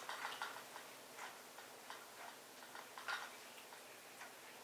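Cats chewing food: faint, irregular crunchy clicks, the loudest about three seconds in.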